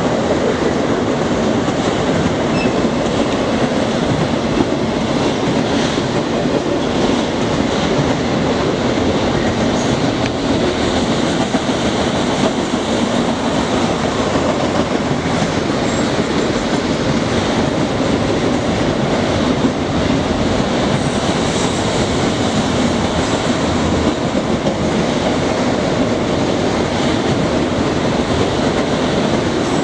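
Freight train of autorack cars rolling steadily past, its steel wheels running over the rails in a loud, continuous rumble.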